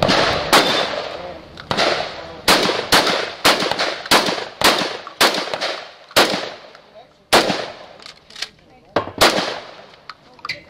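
A string of about a dozen gunshots in quick succession, about two a second at first and more spaced out later. The later shots come from a shotgun fired from the shoulder at stage targets.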